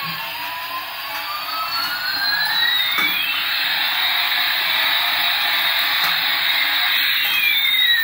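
Toy Airbus A380 airliner's electronic jet-engine sound effect: a steady hissing rush with whining tones that slowly sweep up and down in pitch, meeting about three seconds in and parting again near the end.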